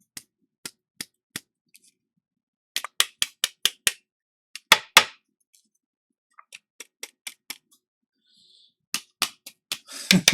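Irregular clusters of sharp clicks and taps from small hard objects, some runs quick, two near the middle louder than the rest.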